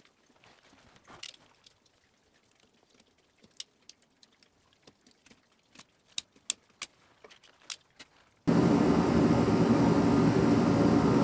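A few faint, sharp clicks and ticks, then about eight seconds in a loud, steady roar cuts in abruptly: a diesel-fired forced-air torpedo heater running.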